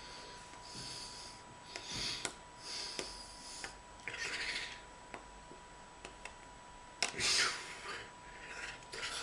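Breath and mouth noises: short hissing puffs, with light clicks and rustles from a person signing with hands and mouth without voice. The loudest puff comes about seven seconds in, and a faint steady high tone runs underneath.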